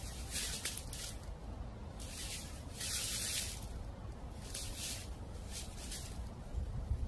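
Dry fallen autumn leaves rustling in a series of short, uneven bursts, about a second or two apart, over a steady low rumble.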